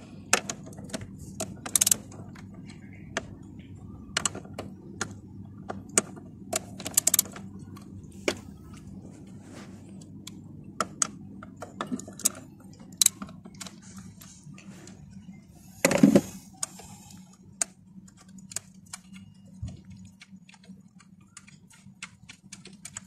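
Scattered light clicks and clinks of loosened bolts and metal parts being handled at a Proton Savvy's throttle body, with one louder rattling clatter about two-thirds of the way through, over a faint steady hum.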